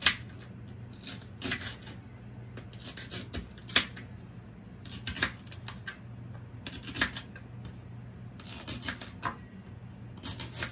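Kitchen knife slicing through unpeeled green bananas on a cutting board: short groups of cuts, each ending in a sharp tap of the blade on the board, every second or two.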